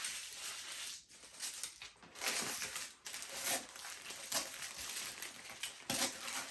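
Eating sounds close to the microphone: a footlong Subway sandwich being chewed in bites, with soft crinkling, over a steady hiss.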